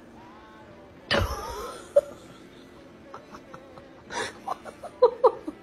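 A sudden loud roar about a second in that dies away over nearly a second. Near the end a person breaks into laughter in quick, rapid bursts.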